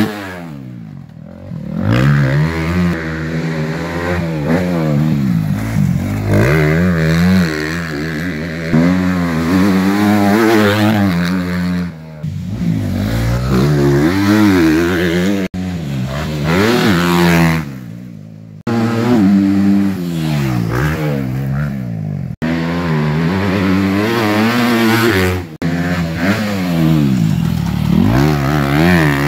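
Motocross bike engine revving hard and easing off as it is ridden round a dirt track, the pitch climbing and dropping with throttle and gear changes, fading as the bike moves away and swelling as it comes back past. The sound breaks off suddenly several times where short clips are joined.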